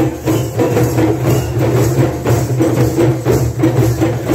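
Live percussion music: a djembe hand drum played in a steady rhythm over a sustained low drone, with bright jingling percussion on top.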